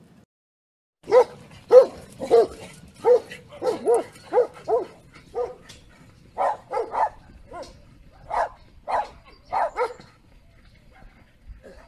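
Komondor sheepdog barking repeatedly: about eighteen loud barks starting about a second in, several in quick runs, stopping near the end.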